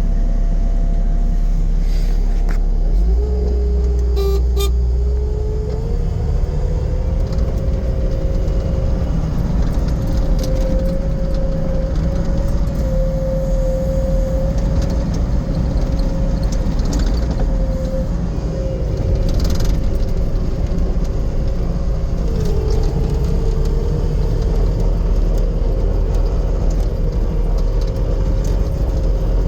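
Bobcat T770 skid steer's four-cylinder diesel engine running steadily with a whine over it, the whine dipping in pitch briefly twice. The low drone gets stronger about three seconds in.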